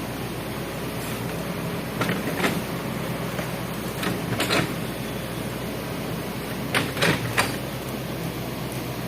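Hitachi hydraulic excavator running steadily, with a few brief harsh sounds about two, four and seven seconds in.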